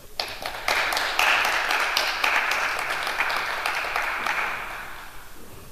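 Audience applauding: a crowd's clapping that starts right away, swells within about a second, and dies away near the end.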